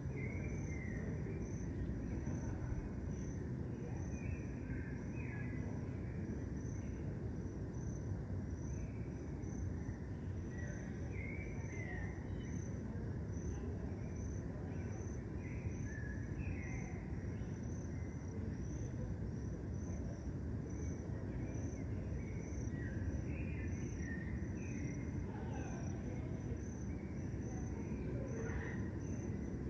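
A cricket chirping in a steady high-pitched pulse about once a second, with scattered short bird chirps over a steady low background rumble.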